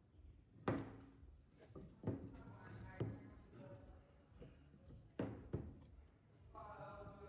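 Five sharp knocks at uneven intervals, like wood being set down or struck, two of them close together. Near the end comes a short pitched sound, like a voice.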